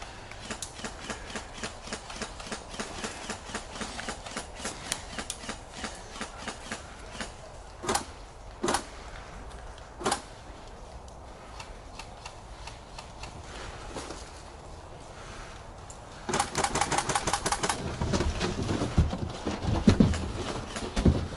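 Airsoft guns firing. Scattered sharp shots crack through the first half, three louder ones come between about 8 and 10 seconds, and a close rapid burst of full-auto fire lasts about a second and a half around two-thirds of the way in. Low thuds and rustling follow near the end.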